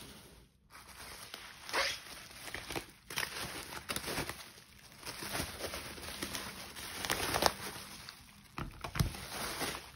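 Bubble wrap crinkling and rustling as it is handled and peeled open, in an irregular string of crackles with a few louder ones.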